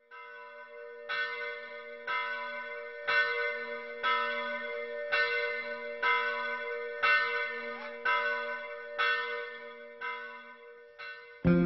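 A large bell tolling, struck about once a second, about a dozen strokes, each ringing on into the next over a steady low hum. Just before the end, a guitar-led music track comes in.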